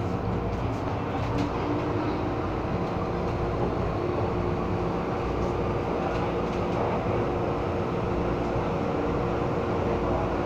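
MTR M-Train subway car running between stations, heard from inside the car: a steady rumble from the wheels and track under a constant hum of several steady tones. Neither rises nor falls.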